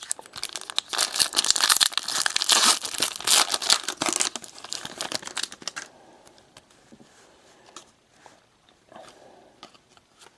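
A foil trading-card pack being torn open: dense crinkling and tearing of the wrapper for about six seconds, then only faint clicks as the cards are handled.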